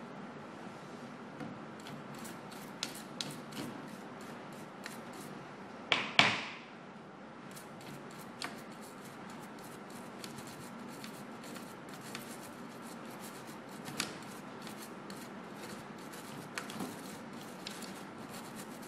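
Toothbrush bristles scrubbing a computer motherboard around a freshly soldered 8-pin BIOS ROM chip, cleaning off flux: a scratchy rubbing with many small clicks, and one brief louder noise about six seconds in.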